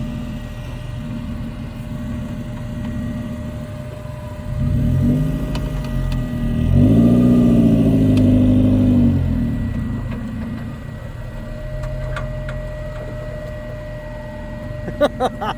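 A four-wheel-drive's engine idles, with a short rev about four seconds in and a longer, louder rev from about seven to nine seconds that rises and then falls back to idle, as it works over rocks. A few sharp clicks come near the end.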